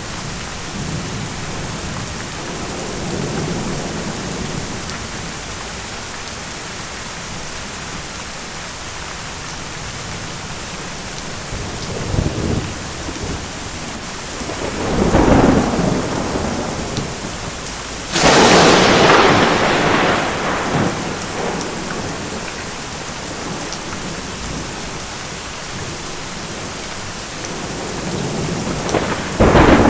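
Steady rain with rolling thunder. Low rumbles, then a swelling peal about halfway, a sudden sharp thunderclap (the loudest sound) about two-thirds of the way through that fades over a few seconds, and another burst of thunder near the end.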